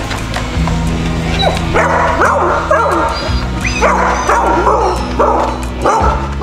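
A dog barking repeatedly in short, high yips, starting about two seconds in, over background music.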